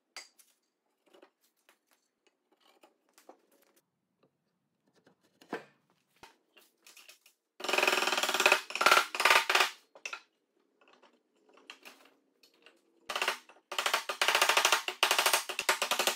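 Mallet knocking hardwood mortise-and-tenon joints together: scattered light knocks at first, then two long runs of rapid, loud knocks, the first about eight seconds in and the second from about thirteen seconds in.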